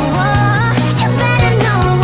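Nightcore-style sped-up, pitched-up pop-rock song: a high sung vocal line over a band backing with a steady beat.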